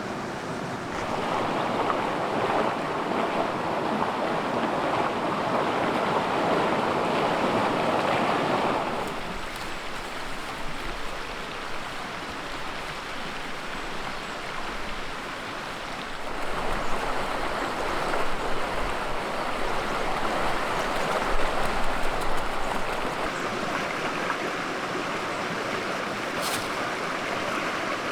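Rushing flow of river water, a steady noisy wash that swells louder for several seconds about a second in and again through the second half.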